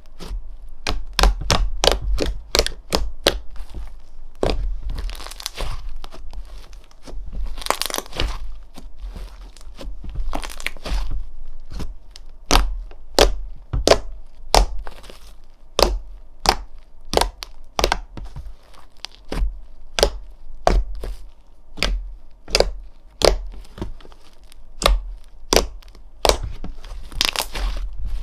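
Slime being pressed and worked by hand, giving a run of sharp pops and clicks about one to two a second, with a few brief crackling rustles between them.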